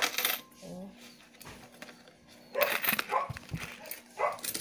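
A dog barking a few short barks, spaced over several seconds, with a faint knock or two between them.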